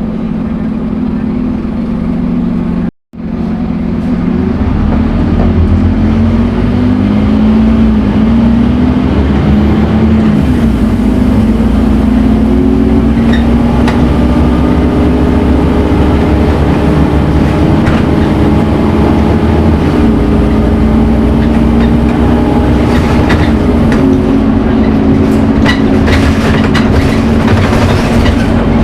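Scania N230UD Omnicity bus engine running under way, its note rising and falling as it accelerates and changes gear, with a brief cut-out about three seconds in. Clicks and rattles join it in the last few seconds.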